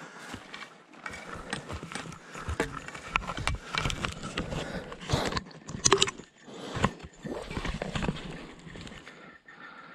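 A hiker's footsteps and trekking-pole tips on a steep rocky descent: irregular knocks, clicks and crunches on rock and dry needle-covered ground, with rustling between them. The sharpest knocks come about six to seven seconds in.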